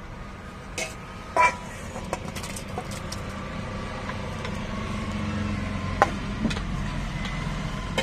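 Lorry engine and road noise heard inside the cab: a steady low drone that swells a little around the middle. A few sharp clinks of steel tableware sound over it, the loudest about a second and a half in and another about six seconds in.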